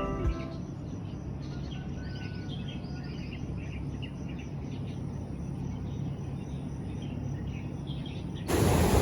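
Small birds chirping over a low, steady outdoor hum. Near the end the sound cuts suddenly to a much louder rush of wind and surf.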